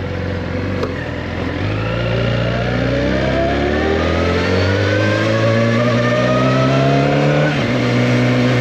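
2014 Suzuki GSX-R1000's inline-four engine pulling under acceleration, its pitch rising steadily through a gear. Near the end it drops suddenly at an upshift and starts climbing again.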